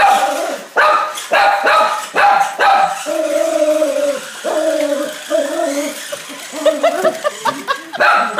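Small dog barking at a remote-control toy car it is chasing: several sharp barks, then a few longer drawn-out whining calls in the middle, then a quick run of short yips near the end.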